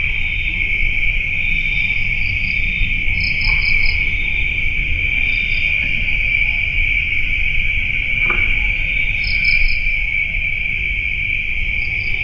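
Insects at night: a steady high-pitched drone with crickets chirping in short groups of three or four pulses every few seconds, over a steady low rumble. A single faint tick about eight seconds in.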